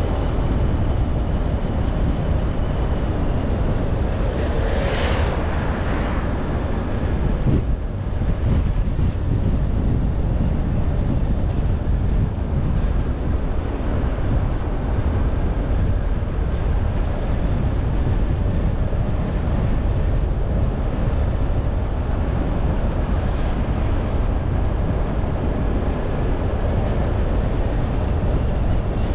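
Steady rumble of a car being driven: engine, tyre and wind noise, with a brief louder rush of noise about five seconds in.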